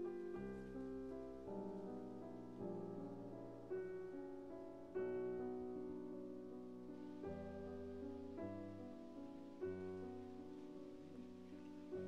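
Background piano music, a new chord struck a little over once a second.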